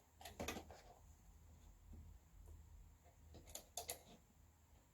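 Near silence with a few faint clicks: a small cluster just after the start and another about three and a half seconds in.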